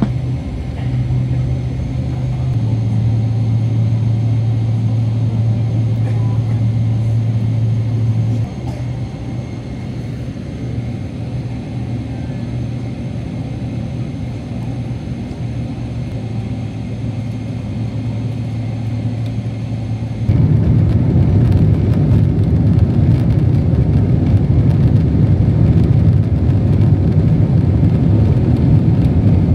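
Jet airliner engines heard from inside the cabin: a steady low rumble with a faint high whine. About two-thirds of the way through, they jump suddenly to a much louder, rougher rumble as the engines spool up for takeoff.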